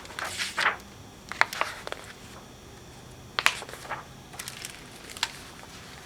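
A picture book being handled and its pages turned: soft paper rustling with a few sharp clicks and taps, the clearest about a second and a half in, three and a half seconds in, and near the end.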